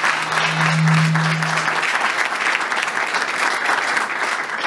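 Audience applauding, a dense steady clapping. A low steady hum sounds under it for about the first two seconds, then stops.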